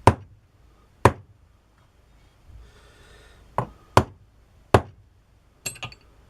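Sharp knocks, about seven in all and irregularly spaced, as parts are tapped and clipped into place while a breast drill is reassembled, ending in a quick double knock.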